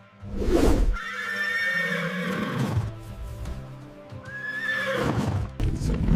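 A horse whinnying twice, two long neighs over background music.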